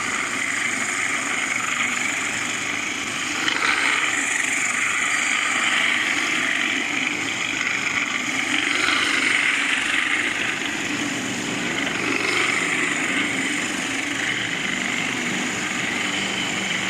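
Industrial floor grinder running with an industrial vacuum cleaner attached, a steady machine noise that swells slightly now and then.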